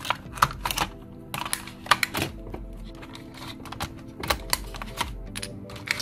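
Irregular plastic clicks and rattles of Eneloop AA batteries being pulled from the slots of a plastic battery-charger case, with faint background music.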